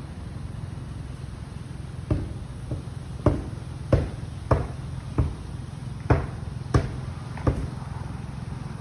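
Footsteps on a paved path, a thud about every two-thirds of a second starting about two seconds in, over a low steady rumble.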